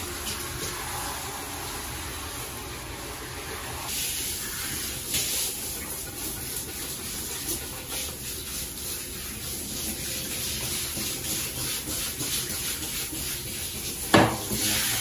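Handheld shower spraying water onto a wet dog's coat in a bathtub, a steady hiss with scattered splashes. A sharp knock a little before the end.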